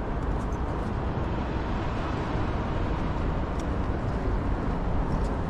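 Steady city street noise with road traffic going by.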